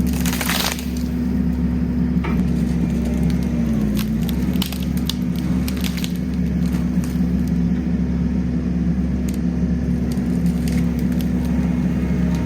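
Kubota SVL65-2 compact track loader's diesel engine running steadily under load, its note dipping briefly about four seconds in. Scattered cracks and snaps of breaking wood sound over it.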